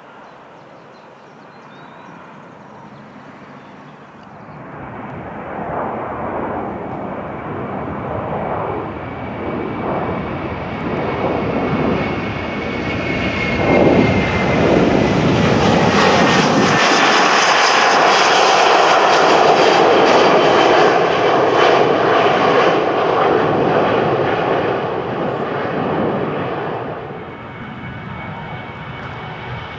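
Airliner's engines passing by, building over about ten seconds to their loudest in the middle and fading near the end, with a faint whine that slides down in pitch as the plane goes past.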